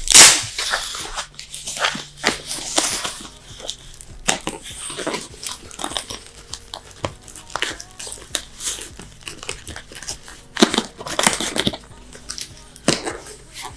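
Packaging crinkling and tearing in irregular crackles as a French bulldog chews and tugs at it, loudest just after the start and again near the end.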